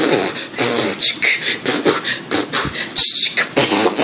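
People beatboxing a steady rhythmic beat with their mouths, mixed with short vocal sounds.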